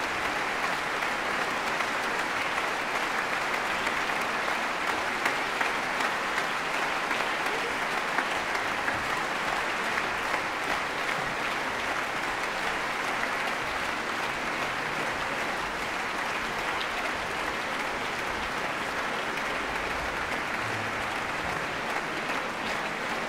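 A large concert-hall audience applauding steadily: a dense, even wash of clapping that neither swells nor dies away.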